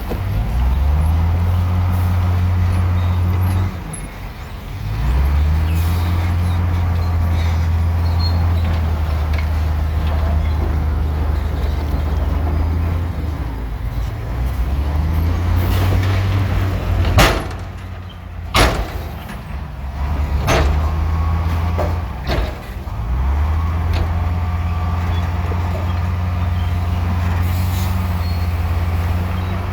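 Heavy diesel engine of a working bulldozer running hard, dropping in revs and picking up again several times. Two loud bangs a little over halfway through, about a second and a half apart, then a few smaller knocks.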